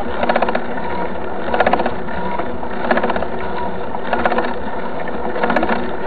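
Mountain bike's rear freewheel hub ticking in short bursts of rapid clicks, five times, about every second and a half, over steady wind and tyre noise from riding on asphalt.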